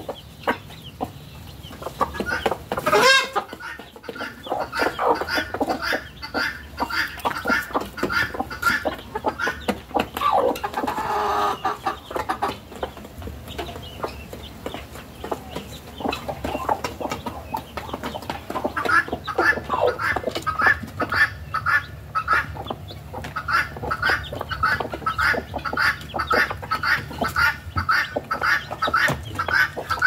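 Chickens in a backyard flock: chicks peeping in a steady run of short high notes, several a second, with hens clucking among them. There is one loud call about three seconds in.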